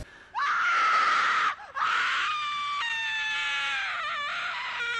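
Jump-scare scream: a loud, shrill scream starting just after the start, a brief break about a second and a half in, then one long wavering scream slowly falling in pitch.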